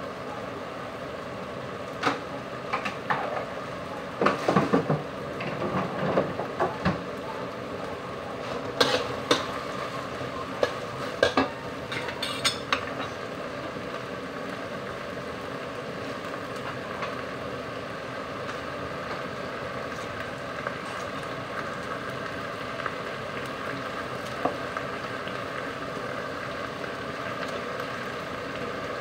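Metal spatula scraping and knocking against a wok as sliced okra is stir-fried, in scattered clusters of strokes through the first half, over a steady frying hiss that carries on alone afterwards.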